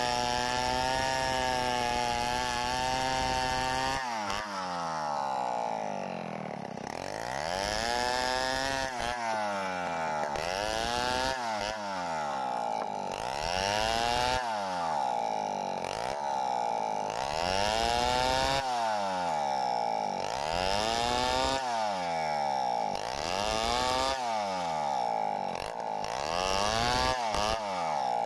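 Stihl 070 two-stroke chainsaw ripping lengthwise through a log to cut boards. It runs at a steady high speed for about four seconds, then its engine speed rises and falls in a regular cycle about every second and a half as the chain works through the wood.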